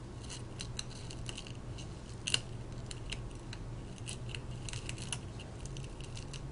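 Metal phone opening tool prying and scraping at shattered LCD glass on a phone's frame: an irregular run of small crisp clicks and crackles, the loudest just over two seconds in, over a faint low steady hum.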